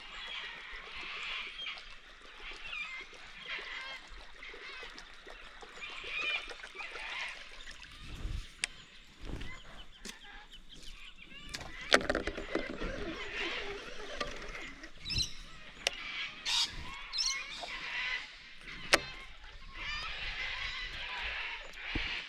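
Birds calling over and over, with a few sharp clicks or knocks.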